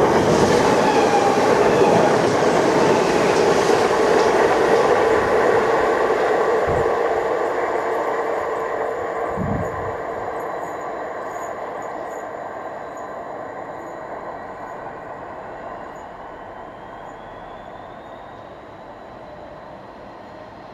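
A train running on the rails and drawing away, its rolling noise fading steadily. In the second half a faint whine rises in pitch.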